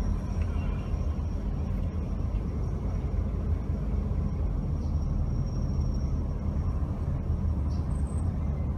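Steady low rumble of a car driving slowly along a city street: engine and tyre noise.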